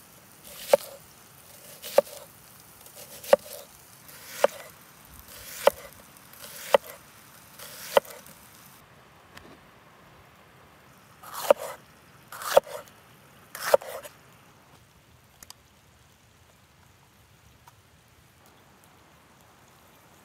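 Red onion being sliced with a kitchen knife on a thick round wooden chopping board: seven even cuts about once a second, each a sharp knock of the blade on the wood. About eleven seconds in come three louder knocks about a second apart.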